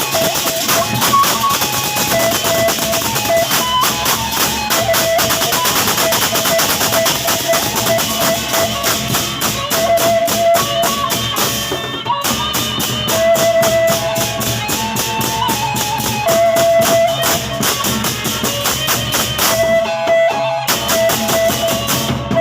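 Gendang beleq ensemble playing: dense, fast drum and cymbal strokes under a high held melody line. The strokes break off briefly twice, about halfway through and near the end.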